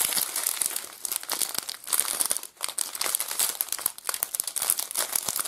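Small clear plastic bags of diamond painting drills crinkling as they are handled and sorted through, with irregular crackles.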